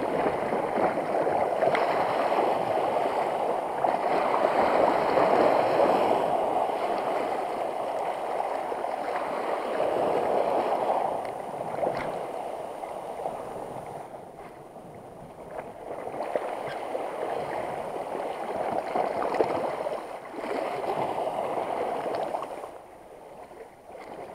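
Sea water surging and washing over the rocks at the water's edge, swelling and ebbing, with a quieter lull about two-thirds of the way through.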